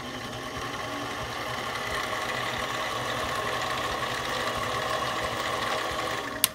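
Harbor Freight mini lathe running steadily with a motor and gear whine while a countersink deburrs and radiuses the drilled hole in a spinning aluminum part. The sound stops with a click near the end as the lathe is switched off.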